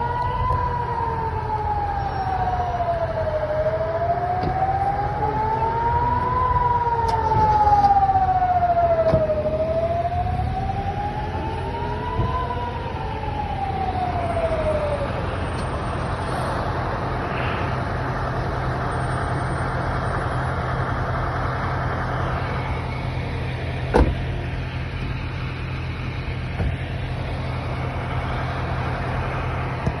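Air-raid warning siren wailing, its pitch rising and falling slowly, about one rise and fall every six seconds, until it fades out about halfway through: the alert calling people to shelter from hostile aircraft. Idling vehicle engines hum underneath, with a single sharp knock late on.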